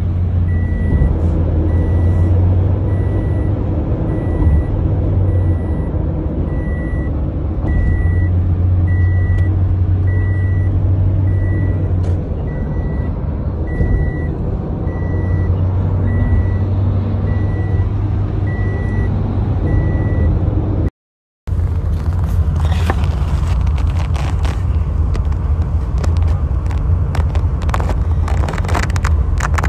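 Car cabin road noise while driving at speed: a steady low rumble of engine and tyres. Over it a short high electronic beep repeats evenly, a little faster than once a second. After a brief dropout about two-thirds through, the rumble returns rougher, with many knocks and rattles.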